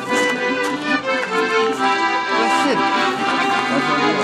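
Piano accordion playing a tune live, a melody over held notes.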